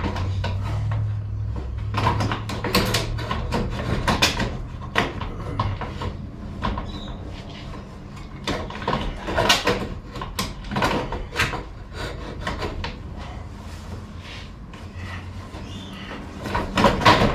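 Irregular knocks, clicks and scrapes of a radiator cooling fan assembly being handled and worked back into place in a car's engine bay.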